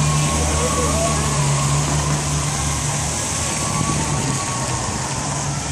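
A motor vehicle's engine running steadily, a low hum under a steady hiss of street noise.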